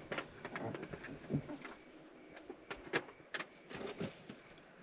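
Dog chewing a crunchy treat: quiet, irregular clicks and crunches, with a few sharper ones in the middle.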